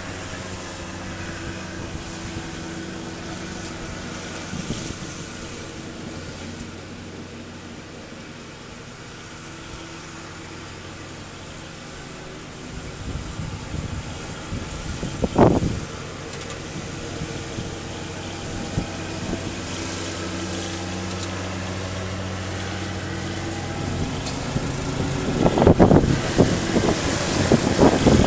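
Riding lawn mower's engine running steadily while mowing. It grows quieter and then louder again, loudest and roughest in the last few seconds. One brief sharp sound comes about halfway.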